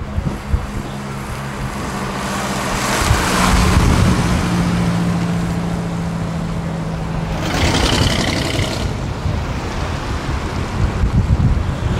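A car's engine running at low revs as the car drives by, with wind rumble on the microphone. Two louder rushes of noise come through, about three to four seconds in and again around eight seconds.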